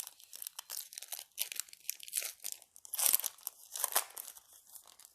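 Foil booster pack wrapper crinkling and being torn open by hand, with two louder rips about three and four seconds in.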